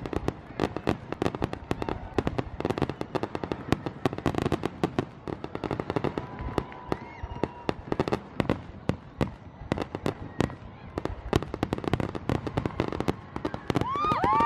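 Fireworks going off in rapid succession: dense, irregular crackling and popping. Whistling fireworks are heard briefly mid-way and again near the end, the last one rising in pitch.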